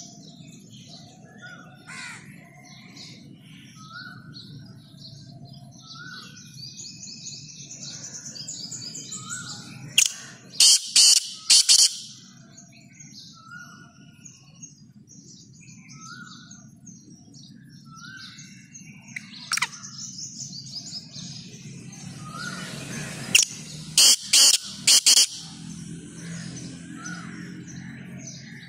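Black francolin calling: a short series of loud notes twice, about ten seconds in and again about twenty-four seconds in. Other birds chirp softly in the background.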